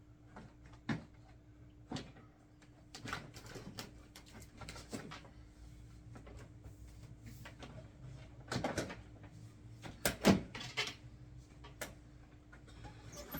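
Scattered clicks, knocks and rustling of objects being handled, the loudest knock a little after ten seconds, over a faint steady low hum.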